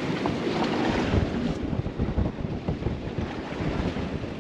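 Wind gusting across the microphone in rumbling buffets, stronger from about a second in, over the wash of the open sea around the boat.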